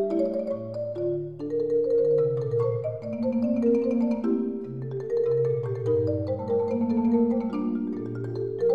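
Background music: a slow melody of overlapping held notes over a lower bass line.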